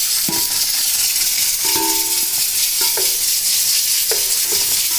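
Oil sizzling steadily in a steel pot as sliced tomatoes go into frying onions, green chilies and ginger-garlic paste, with a few sharp knocks and short ringing tones over the sizzle.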